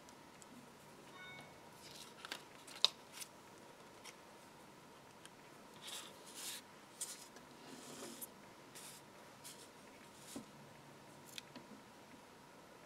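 Soft handling sounds of die-cut card pieces and metal tweezers: scattered small clicks and brief paper rustles, the sharpest tick about three seconds in, with a faint steady high whine underneath.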